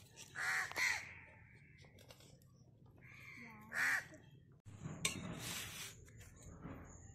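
Crow cawing: two harsh caws close together near the start and a third about four seconds in.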